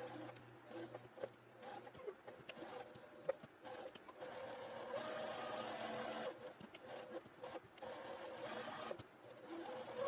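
Electric sewing machine stitching through fabric, running in short stop-start stretches with a longer steady run in the middle.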